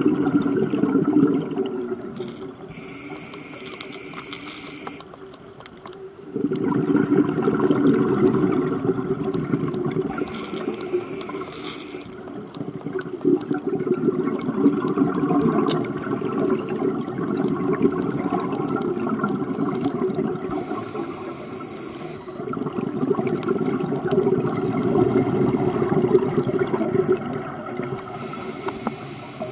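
Scuba regulator breathing heard underwater: slow breaths, each inhalation a high hiss through the regulator and each exhalation a long low rumble of bubbles.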